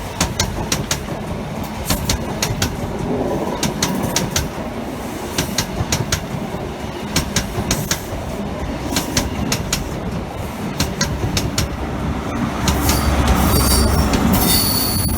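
A High Speed Train led by class 43 power car 43367 passing through, its wheels clicking in quick groups over the rail joints over a steady rumble. The rumble grows louder near the end, joined by a thin, high wheel squeal.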